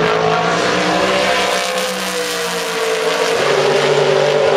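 GT1 race car engine running hard at high revs. Its pitch dips slightly, then rises again about two seconds in as the car accelerates.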